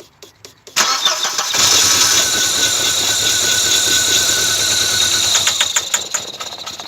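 1992 Audi 80 engine cranking briefly, then catching just under a second in and running for about five seconds before it fades out and dies. Its running as part of the test confirms the no-start comes from the car getting no fuel, blamed on a bad fuel pump.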